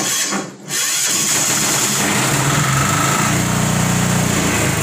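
Home generator set's engine being started cold: a short burst at the start, a brief dip, then the engine catches about a second in and keeps running steadily.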